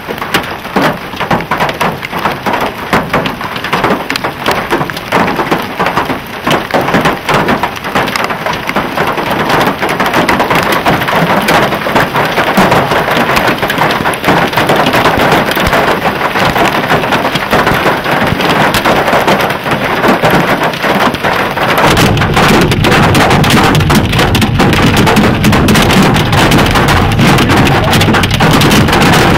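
Heavy hailstorm: hailstones clattering down in a dense, unbroken rattle of impacts over the hiss of rain. About three-quarters of the way through it turns louder and deeper.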